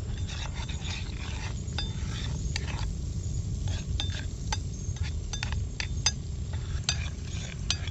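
Metal spoon stirring garlic in melting butter in a steel pan over a campfire, clinking and scraping against the pan at irregular moments, with the butter sizzling. A steady low rumble runs underneath.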